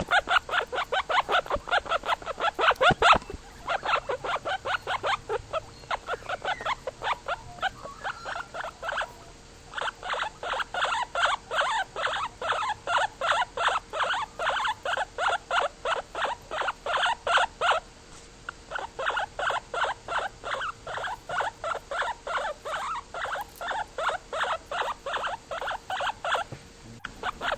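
An animal calling in long runs of short, rapidly repeated calls, several a second, with brief pauses about a third and two-thirds of the way through.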